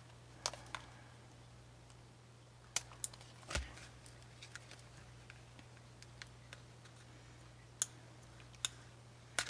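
Scattered small clicks and taps of a plastic jointed doll and its cardboard packaging being handled, with a duller knock about three and a half seconds in, over a faint steady low hum.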